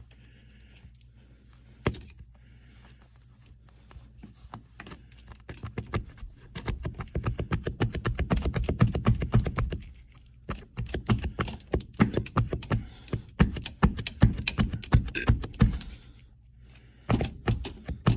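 Quick runs of light tapping and knocking, several strokes a second, broken by short pauses, with a single louder knock about two seconds in: a wire or probe being jabbed against the truck's floor to find the seat-bolt holes under new carpet.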